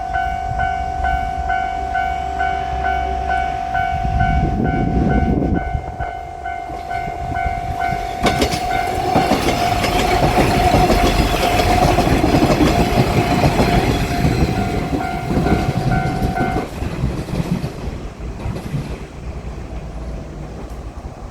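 Japanese railroad crossing warning bell ringing its rapid, repeating electronic 'kan-kan' tone while a diesel railcar passes with a heavy rumble and wheel noise. The bell stops about two-thirds of the way through and the train noise fades away.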